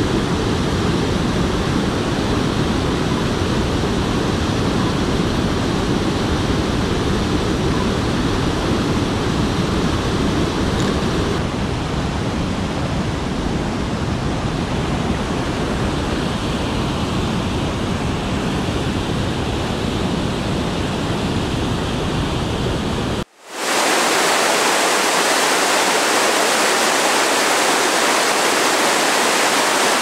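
Flood-swollen creek rushing over rocks and ledges in rapids, a loud, steady rush of water. About two-thirds of the way through it cuts abruptly to a hissier rush of churning water with far less low rumble.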